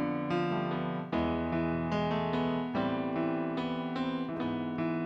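Korg stage keyboard playing an instrumental passage of a slow ballad in an electric piano voice: chords changing every second or so over low held bass notes.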